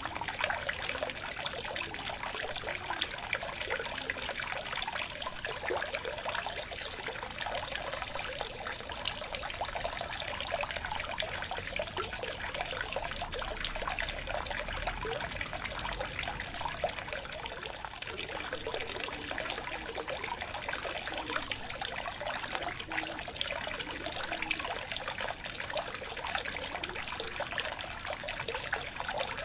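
Aquarium water trickling steadily, a dense, even run of tiny splashes and bubbles that does not let up.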